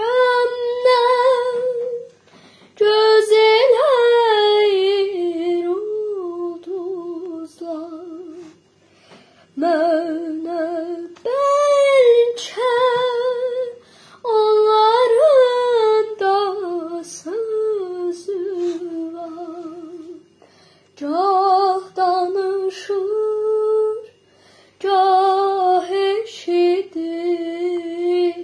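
A young girl singing an Azerbaijani song unaccompanied, in phrases with short pauses for breath and held notes that waver in pitch.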